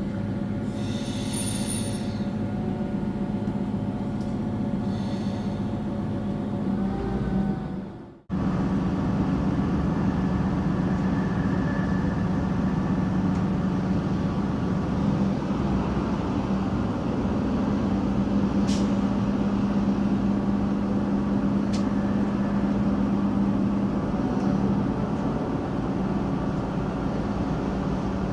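Train running, a steady rumble with a low hum. It fades and cuts out abruptly about eight seconds in, then carries on steadily.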